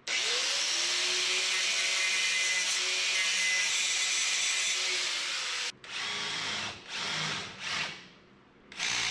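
Angle grinder spinning up and grinding the cut end of a metal hose barb held in a vise, with a steady high grinding noise for about six seconds. It then cuts off and is run against the metal again in a few short bursts.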